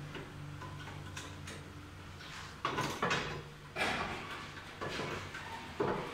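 About five sharp knocks and clatters of tools being handled at a wall-mounted tool rack, over a steady low hum.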